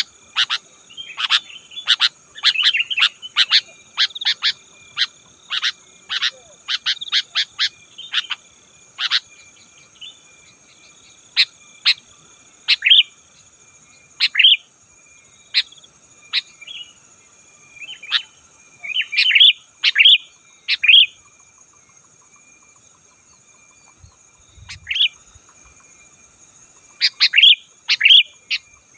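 Sooty-headed bulbuls singing, with rapid, short chirping phrases packed close together for the first several seconds and then coming in looser clusters, with a pause in the middle. A steady high-pitched drone runs underneath.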